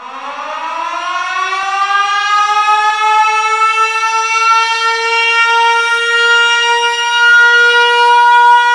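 Air-raid siren winding up: one tone that starts low, rises in pitch over the first few seconds, then holds steady and grows louder.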